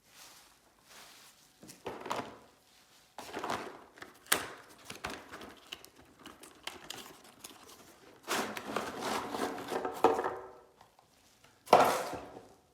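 Hand-handling noises: crinkling and rustling with a few sharp knocks, in irregular bursts, the longest about two-thirds of the way through and a short loud one near the end.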